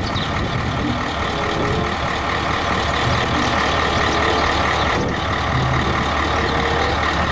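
Heavy three-axle dump truck's diesel engine running steadily with a low hum, driving the hydraulics as the tipper body is raised.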